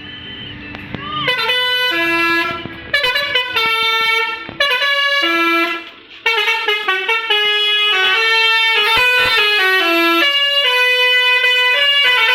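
Basuri telolet bus horn, a set of air-horn trumpets, playing a quick multi-note tune. It starts about a second in and plays on with two short breaks.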